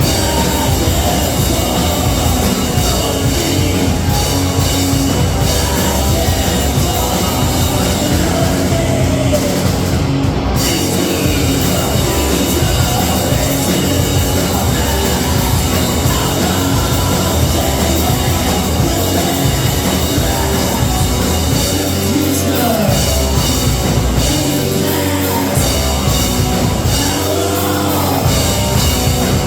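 Live rock band playing loud, continuous music.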